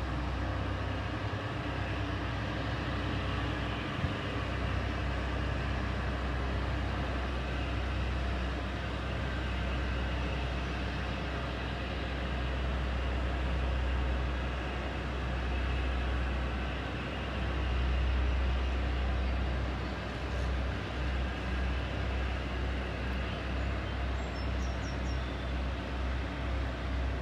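Towboat's diesel engines running with a steady low rumble as it pushes barges along the river, wavering in level over the last several seconds.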